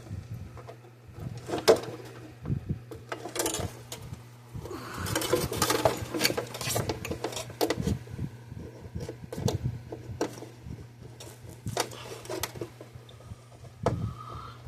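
Scattered clicks, taps and small metallic rattles of parts being handled and fitted, with a stainless steel zip tie being worked around a fence-charger transformer, over a steady low hum.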